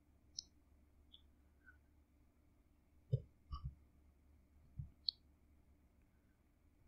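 About half a dozen faint computer mouse clicks: one about half a second in and the rest between about three and five seconds in, over faint room tone.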